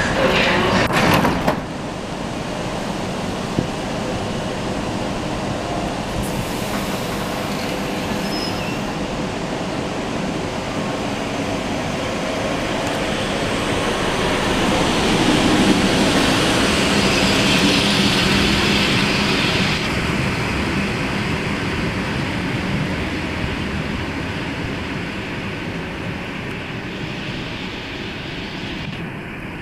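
ED4M electric multiple unit pulling out of the platform: a loud clatter as the doors shut at the start, then the steady rumble of wheels and motors that grows as the train speeds past, loudest around the middle, then fades.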